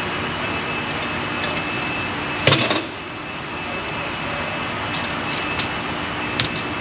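A steady engine-like roar, with one sharp clank about two and a half seconds in and a couple of faint clicks near the end.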